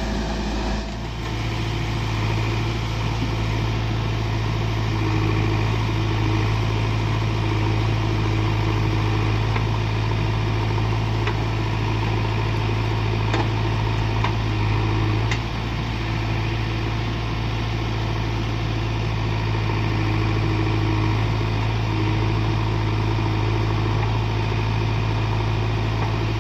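Heavy diesel engine of a backhoe loader or tractor running steadily with a deep, even hum, its pitch shifting slightly twice.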